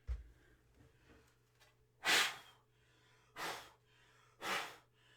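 Short, sharp puffs of breath blown by mouth onto a tape-deck part to clear dust, three of them about a second apart, after a brief low thump at the start.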